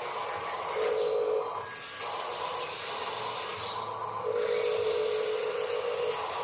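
Small electric motors and metal gearboxes of toy-grade RC construction models whining as they work. The whine comes in briefly about a second in and again for about two seconds near the middle, over a steady hiss.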